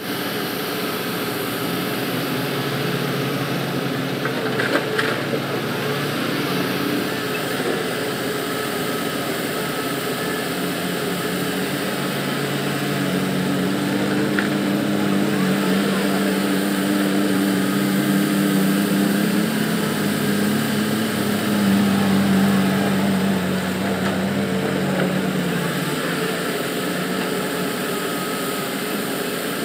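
Large Caterpillar excavator's diesel engine running, pulling harder with a stronger, steadier note for a stretch in the middle, as under digging load. A few knocks about four to five seconds in.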